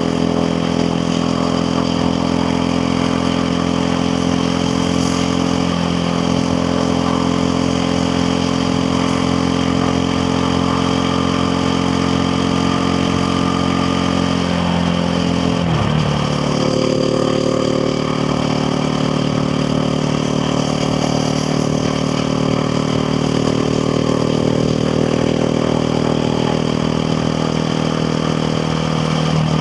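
KTM 690 Duke R's single-cylinder engine running steadily under way, its note easing slowly lower, then dipping sharply once about halfway through before settling into a steady run again.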